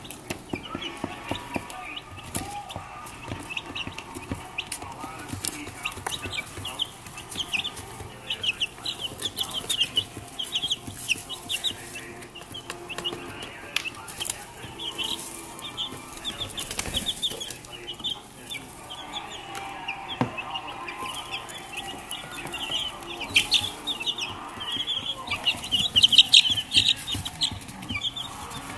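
A brood of two-week-old chicks peeping: many short, high cheeps overlapping in a constant chatter, with light scratching and rustling in wood-shaving litter. The peeping gets louder and busier near the end.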